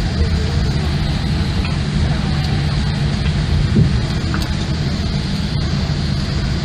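Cabin noise of a Boeing 787 Dreamliner rolling along the runway after landing: a steady low rumble of engines and wheels, with faint ticks and rattles.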